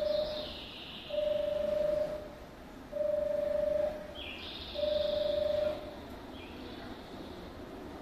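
Station platform warning tone: a steady beep of about a second, repeated roughly every two seconds and stopping about six seconds in, signalling an oncoming train. A higher chirping sound comes twice.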